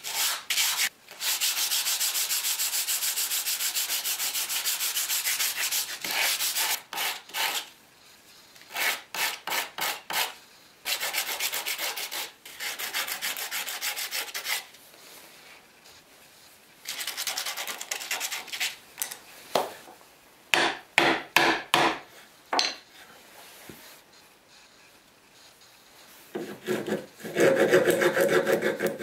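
Small wooden slats rubbed back and forth by hand on a sheet of sandpaper, first in a long unbroken spell of quick strokes, then in shorter spells with pauses between. In the last couple of seconds a hand file rasps across a wooden handle piece held in a vise.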